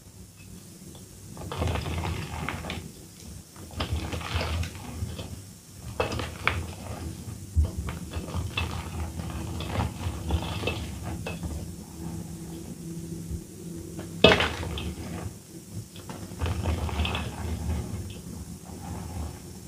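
Reformed gym chalk blocks and loose chalk powder being crushed and squeezed by hand in a steel bowl: irregular soft crunching and crumbling, with hands scraping against the metal bowl. One sharp, louder crack comes about fourteen seconds in.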